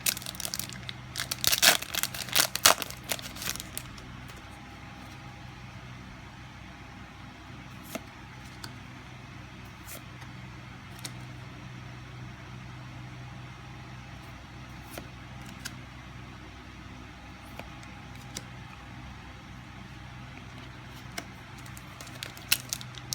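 Foil trading-card booster pack being torn open and crinkled for a few seconds, then light handling of cards with a few faint clicks over a low steady hum; crinkling starts again near the end.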